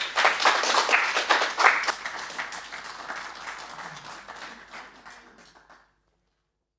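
Audience applauding at the end of a lecture: dense clapping, loudest over the first two seconds, thinning and fading until it cuts off suddenly about six seconds in.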